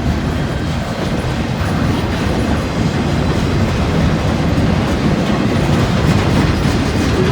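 Freight train rolling past, a steady noise of wheels on the rails with a faint clickety-clack.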